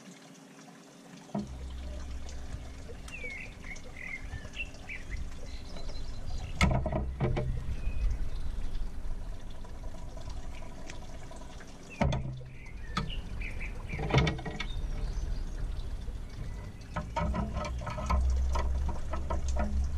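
Wet squelching of a marinated whole chicken being handled and pushed onto a metal rotisserie spit, with clicks of the spit's metal forks. Birds chirp now and then.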